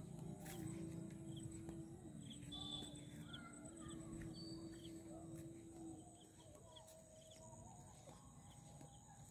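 Quiet rural evening ambience with scattered short bird chirps over a steady high-pitched insect drone. From about half a second to six seconds in, a distant long low tone holds and shifts pitch a few times.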